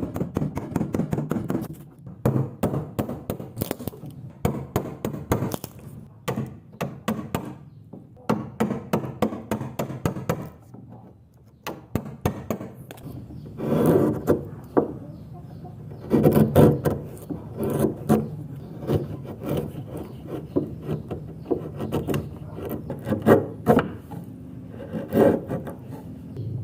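Hand tool working a wooden joint, scraping and cutting the wood in quick repeated strokes, with a brief pause about halfway through.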